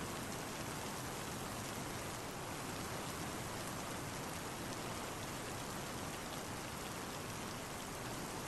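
Steady rain: an even, unbroken hiss of falling rain with faint scattered drop ticks.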